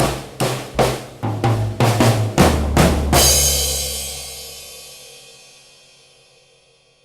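Acoustic drum kit played in a steady beat of snare and bass-drum hits, ending on a loud cymbal crash with the bass drum about three seconds in. The crash and the drum ring out and fade away over the next few seconds.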